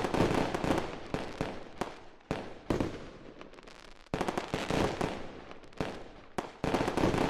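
Repeated bursts of dense crackling and popping, a new burst about every second and a half, each fading before the next.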